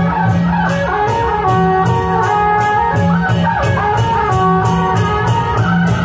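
Loud procession music: a wind-instrument melody over a steady drum beat, with sharp cymbal-like strikes about three to four times a second.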